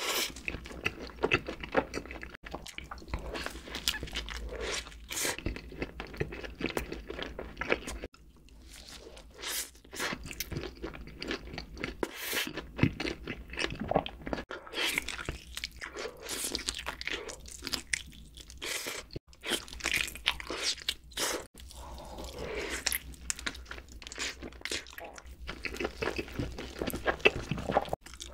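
Close-miked eating sounds: bites into a soft cheeseburger and sticky glazed fried chicken, then chewing. Irregular crunches and small mouth clicks come in quick, uneven runs.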